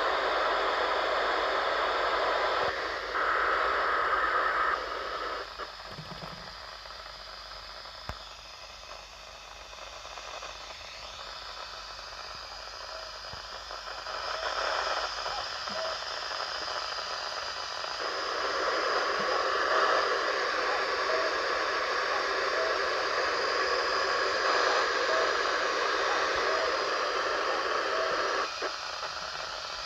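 Hiss and static from a radio receiver picking up a weak, distant disaster-prevention wireless broadcast. The noise dips for a few seconds and then rises again. In the second half, faint short tones repeat about once a second under the hiss: the cuckoo-call chime barely coming through.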